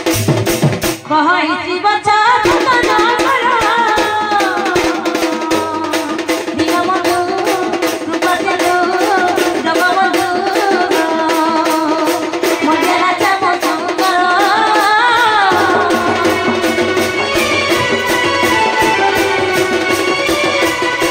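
Odia folk music: a large barrel drum (dhol) beaten in a steady rhythm under a wavering melody line.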